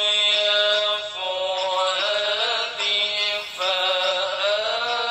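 A voice singing a chant-like melody with long held notes that waver and slide between pitches.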